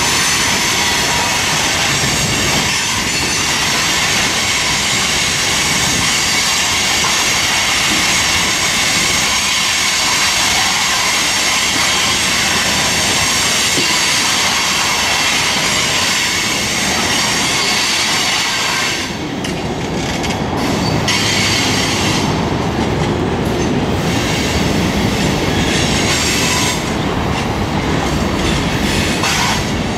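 Freight cars of a slow-moving freight train rolling past, their steel wheels squealing with several steady high-pitched tones over the rumble and clatter of wheels on rail. The squeal drops out briefly a few times in the last third.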